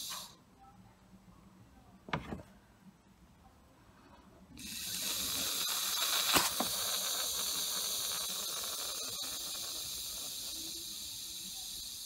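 Air hissing out of a leaking joint in a car's turbo boost pipe as it is blown into by mouth through a rubber leak-tester plug. A short hiss stops just after the start, a click comes in the pause, then a steady hiss starts about four and a half seconds in and slowly fades. The hiss is the boost leak: the hose joint does not seal on this pipe.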